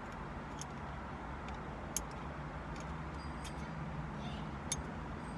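A few sharp, scattered clicks of small metal parts and tools being handled, over a steady low hum.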